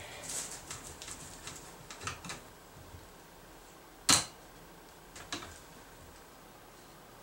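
Wood knocking on a workbench as a clamped pine pedestal base is turned over and handled: small knocks and clicks over the first two seconds, one sharp loud knock about four seconds in, and a couple of lighter clicks a second later.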